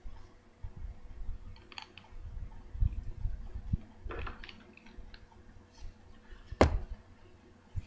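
Small objects and packaging being handled on a table: scattered light clicks and rustles, a few dull bumps, and one sharp click near the end.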